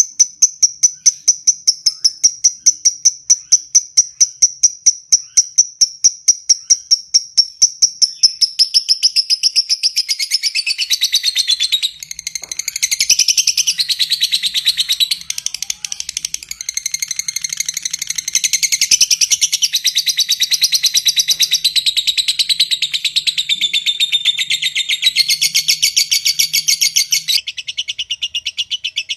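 Lovebird calling: a rapid, even run of sharp high ticks, about five a second (the 'ngetik' call). After some eight seconds it thickens into a long, fast, shrill chattering trill (the 'ngekek'), which breaks off near the end and then starts again.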